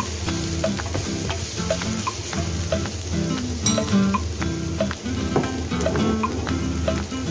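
Minced meat and tomato paste sizzling in a frying pan, stirred with a wooden spoon, with light scraping clicks from the stirring. Background music with a melody that repeats about every two seconds plays over it.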